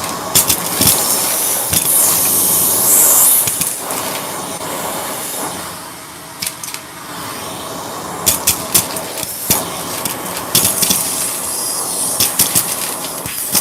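A Shark vacuum cleaner running, its steady suction hiss swelling and easing as it is worked, loudest and highest a couple of seconds in and dipping about halfway through. Short sharp clicks and rattles break through it again and again.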